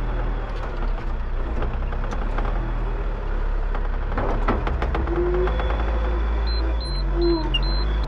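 Small John Deere loader's diesel engine running steadily, heard from inside the cab, with rattles and knocks as the bucket pushes into the muck heap. A run of short high beeps, about two or three a second, comes in near the end.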